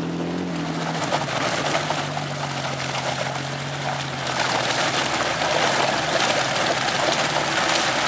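Nissan Patrol 4x4's diesel engine running steadily under load through deep mud ruts, with the tyres churning and splashing mud and water. The churning grows louder about four seconds in.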